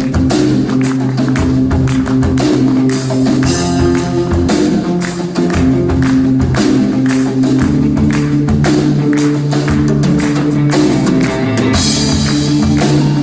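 Background music with a steady beat: held bass and chord notes under quick, regular tambourine-like percussion.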